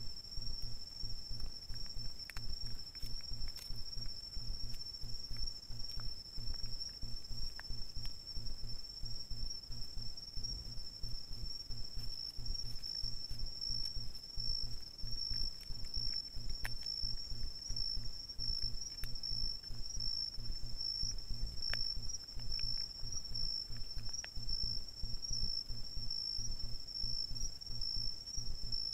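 Night insects chirring in one steady, unbroken high-pitched trill, with a fast low pulsing underneath and a few faint scattered clicks.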